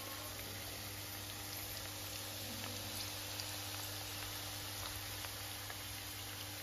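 Pork and potato pieces frying in rendered pork fat in a covered pan: a steady soft sizzle with scattered small crackles.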